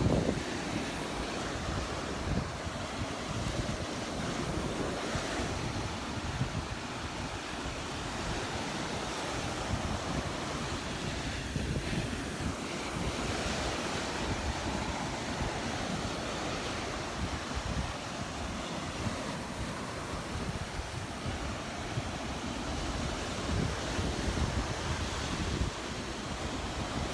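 Surf washing steadily onto a sandy beach, with wind buffeting the microphone in a low, fluttering rumble.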